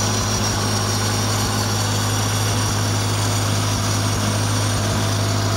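1972 Farmall Cub's small four-cylinder flathead engine running steadily, still warming up after a cold start.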